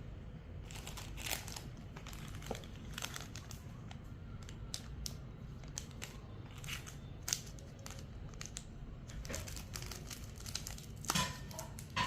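Packaging being handled and opened: irregular crinkling and rustling with short tearing sounds, loudest near the end.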